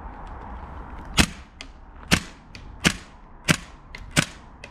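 WE MP7 gas-blowback airsoft SMG firing five single shots, the first about a second in and the rest roughly 0.7 s apart, each sharp crack followed by a fainter click. Wind rumbles on the microphone underneath.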